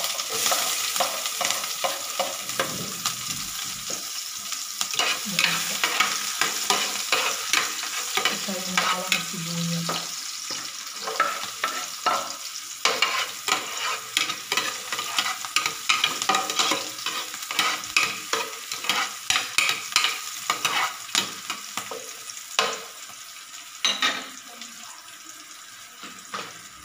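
Diced beef frying in hot oil in a nonstick pan, sizzling steadily, while a spoon stirs it with frequent scrapes and taps against the pan. The sizzle and stirring die down near the end.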